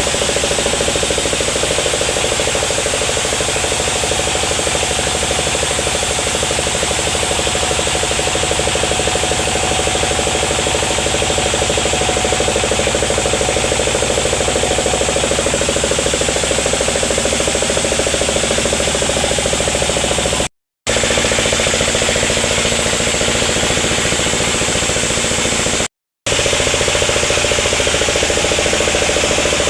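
Sawmill machinery running steadily while sawing sengon wood: a loud, even mechanical drone that drops out briefly twice in the second half.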